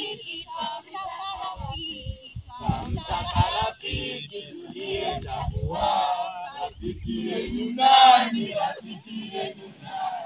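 A group of young people singing and chanting a game song together, loudest about eight seconds in, with low thuds beneath the voices in the middle stretch.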